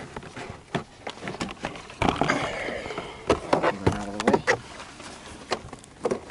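Handling noise from wires and plastic interior trim being worked by hand: irregular clicks, knocks and rustling, with a brief pitched sound about four seconds in.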